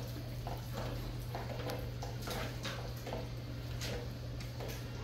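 Irregular short, soft wet taps and splashes from hands scrubbing a soapy dog's wet coat during a bath, over a steady low hum.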